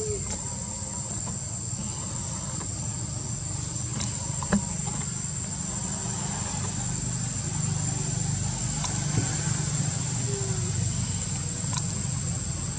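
Steady high-pitched insect drone over a low background rumble, broken by a sharp click about four and a half seconds in and a fainter one about nine seconds in.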